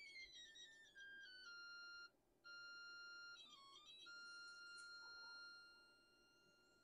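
Audio test tone fed through the three-tube regenerative receiver's two tube amplifier stages. The pitch slides down early on, then holds steady, cuts out briefly about two seconds in and dips lower for a moment before settling again. It fades out near the end. The tone getting through shows that both amplifier stages pass audio.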